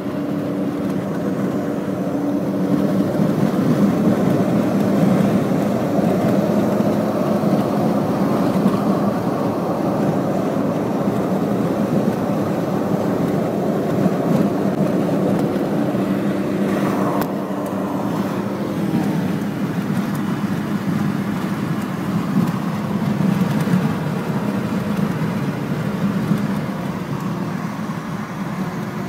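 Steady road and engine noise heard inside a moving car, with a brief swell of noise a little over halfway through.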